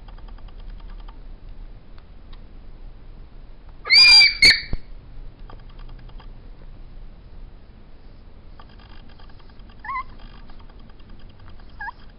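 New Guinea singing dog puppy giving one loud, high yelp about four seconds in, typical of a puppy that has been swatted or hissed at by a cat. Near the end come two short, high whimpers.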